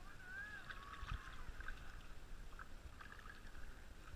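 Water gurgling and lapping around a swamped, half-sunk cabin boat as it fills and settles, with small irregular splashes and clicks. About half a second in, a short whistly call rises and falls.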